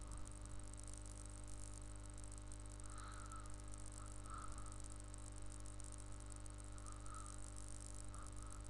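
Steady hiss with a low electrical hum from the recording microphone, with a few very faint soft sounds; no speech.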